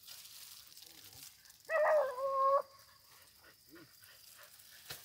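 A hunting dog baying once: a single drawn-out call of just under a second, about two seconds in, dipping slightly in pitch at its start and then held steady.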